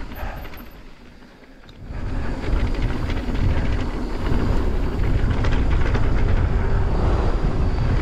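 Mountain bike riding down a dirt trail: wind on the microphone mixed with tyre and frame rattle. The noise eases for about a second near the start, then returns loud and steady.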